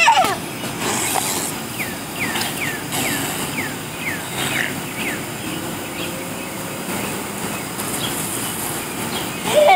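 A steady hiss of water spray from a running lawn sprinkler. A small child gives a short squealing cry at the start and another near the end. In between, a bird sings a quick run of short, high, down-slurred whistles.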